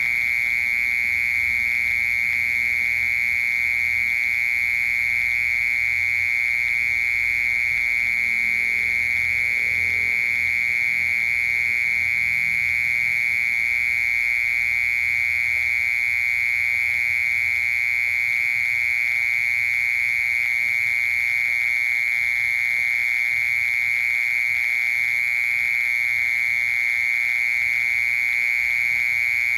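A cricket singing one continuous, steady, high-pitched trill without a break.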